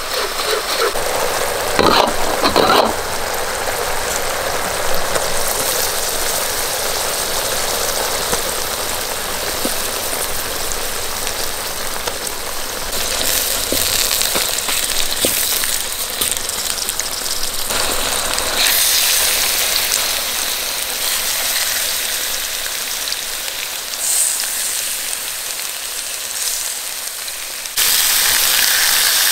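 Sauce sizzling and bubbling in a hot metal wok, with a metal ladle scraping the wok briefly about two seconds in. The sizzle steps up suddenly and is loudest near the end.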